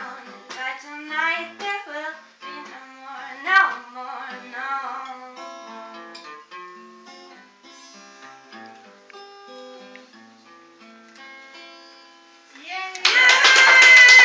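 Acoustic guitar played as a song closes: sung notes over the guitar for the first few seconds, then picked guitar notes alone, growing quieter. About thirteen seconds in, loud clapping breaks out.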